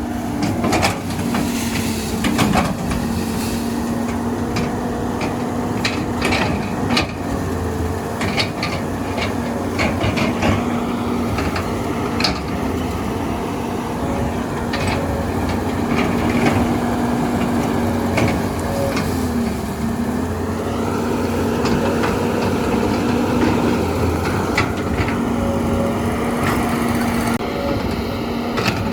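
Heavy machine's diesel engine running steadily, its pitch dipping briefly near the two-thirds mark as it takes load, with scattered sharp knocks and clanks over it.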